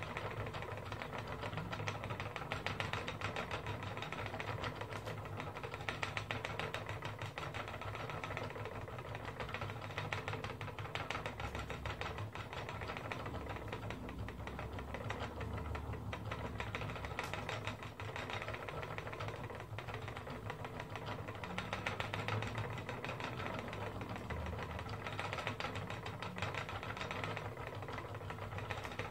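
Wooden spinning wheel running steadily as wool is spun onto the bobbin, with a fast, even clicking and rattle from the turning wheel and flyer.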